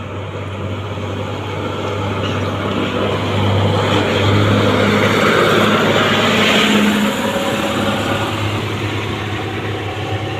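A bus engine running as the bus passes close by. It grows louder for about four seconds, peaks near the middle, and fades after about seven seconds, over a steady low engine hum.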